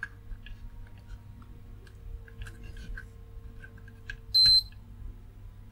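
Digital multimeter's beeper giving one short high beep about three-quarters of the way through, as the test probes find a connection or very low resistance across the points being tested. Light clicks of the probe tips tapping on the board come before it.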